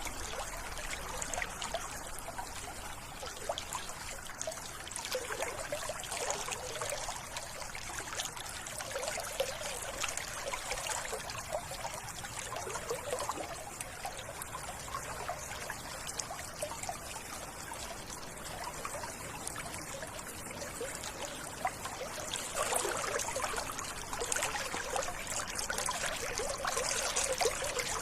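Running water trickling and babbling steadily, as in a small stream, a little louder in the last few seconds.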